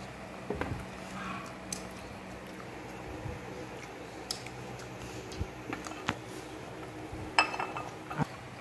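Fingers picking kernels off a boiled corn cob: scattered small clicks and soft squishing handling sounds, the loudest a sharp click near the end, over a steady low hum.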